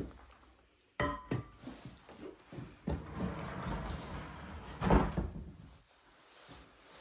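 Knocks and clatter of objects being handled: a sharp clink with a brief ringing tone about a second in, smaller knocks and rustling after it, and a louder thump near five seconds.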